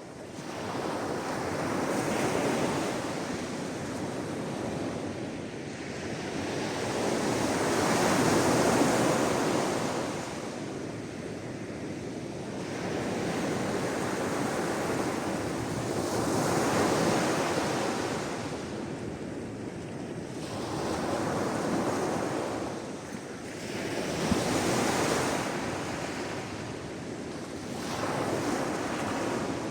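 Sea waves breaking and washing ashore, the surf swelling and easing in slow surges every few seconds.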